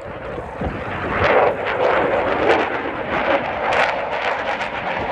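Dassault Rafale's twin Snecma M88 jet engines passing overhead, a loud roar that swells about a second in, shot through with a rapid ragged crackle.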